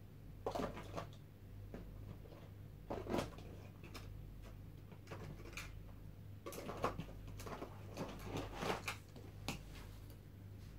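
Scattered soft knocks and clicks of small objects being handled, with a busier cluster in the second half, over a steady low electrical hum.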